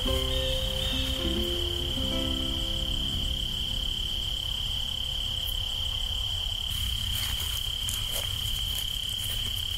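Crickets trilling in one steady, unbroken high tone over a low rumble. A few low held notes sound in the first few seconds.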